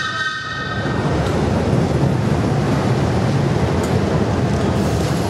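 Departing heritage train rolling past the platform: the teak Metropolitan coaches, then the electric locomotive Sarah Siddons at the rear, with a steady rumble of wheels on the rails. A brief high ringing tone sounds right at the start.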